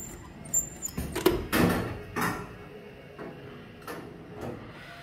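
Claw machine in operation as its claw is lowered: a few short, high electronic beeps at the start, then a run of clunks and knocks from the claw mechanism over the first couple of seconds, with a few fainter knocks about four seconds in.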